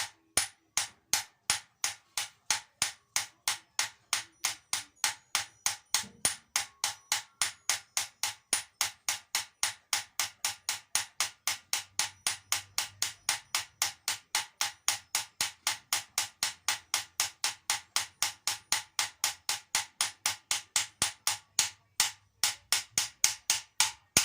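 Light, evenly spaced hammer taps on a socket, driving a Land Rover propshaft centre bearing onto its seat, about three taps a second with a brief pause near the end.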